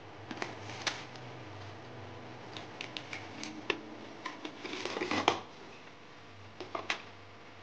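A stack of individually wrapped alcohol prep pad sachets rustling and clicking against each other and the cardboard box as they are pulled out and flipped through with the fingers. A dense burst of rustling about five seconds in is the loudest, with a couple of sharp flicks near the end.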